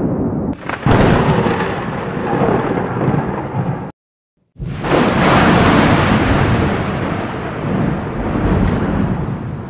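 Thunder: loud rolling rumbles with a sharp crack about a second in. The sound cuts out completely for about half a second near the middle, then a second long rumble swells and slowly fades.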